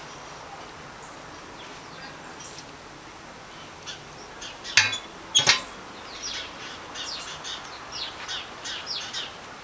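Two sharp metallic clinks about half a second apart, then a small bird chirping repeatedly in short high notes.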